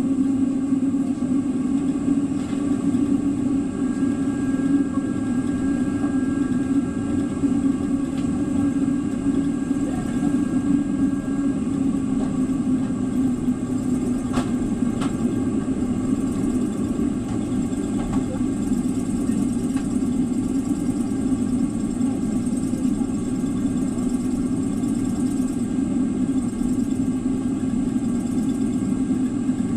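Boeing 777-300 jet noise: a steady, unbroken drone with a faint constant high whine.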